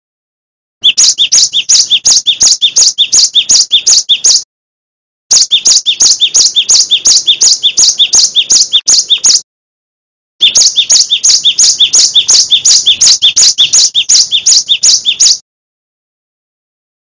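Cinereous tit (gelatik batu) singing a fast, evenly repeated note, about three a second, in three bouts of four to five seconds with short breaks between them.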